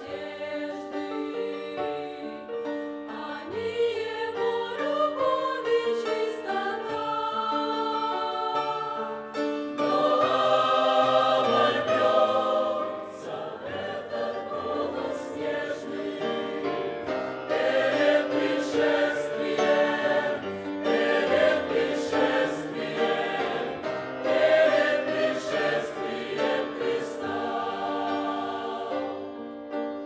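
Mixed church choir of women's and men's voices singing a hymn in parts, with sustained chords that grow louder about a third of the way in and again past the middle.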